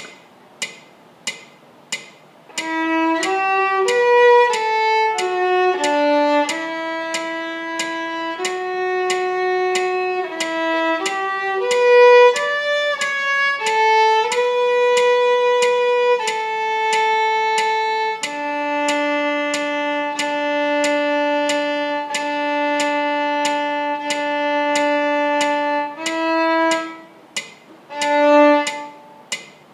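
Solo viola playing a Celtic dance tune with the bow. A quick run of notes leads into a long held note about two-thirds of the way through, then a short pause before the playing resumes. A steady tick about every 0.6 seconds sounds alone for the first two and a half seconds and keeps the beat underneath.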